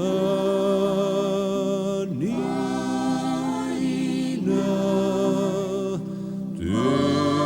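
A women's choir sings slow, held notes of a Christmas carol, with a new phrase starting about every two seconds.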